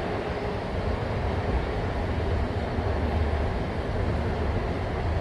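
Box fan's electric motor running steadily with its blade off, its bare, rusty shaft spinning, giving a continuous low rumble with a faint steady hum.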